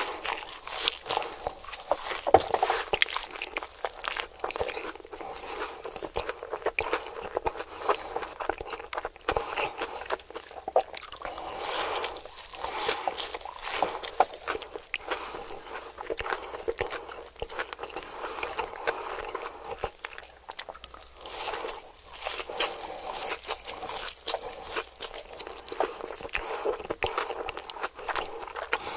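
A person biting into and chewing crispy fried food, hash browns and chicken nuggets, close to the microphone: a dense, irregular run of sharp crunches and crackles.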